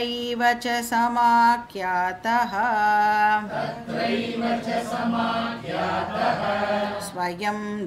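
A woman chanting a Sanskrit shloka in a slow melodic recitation, holding long notes on a steady pitch with small glides between syllables.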